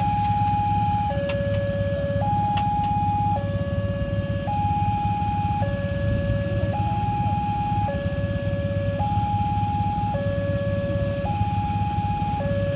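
Level crossing warning alarm of a Wantech crossing system sounding its two-tone signal, a high and a low tone alternating about once a second, which warns that a train is coming while the barriers are down. A steady low rumble runs underneath.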